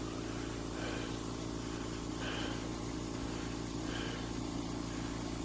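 The VEVOR pond aerator's 3/4 HP air compressor running with a steady, quiet low hum.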